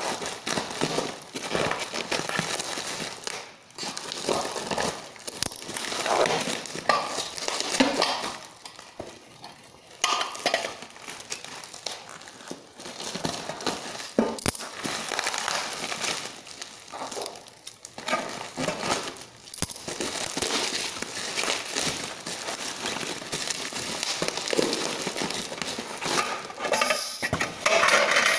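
Packing wrap crinkling and rustling as dishes are unwrapped by hand, with occasional clinks of dishware being handled.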